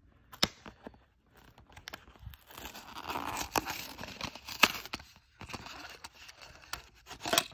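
A Hot Wheels short-card blister pack being torn open by hand: the cardboard backing rips and the plastic blister crackles. Several sharp snaps stand out, the loudest about two-thirds of the way through.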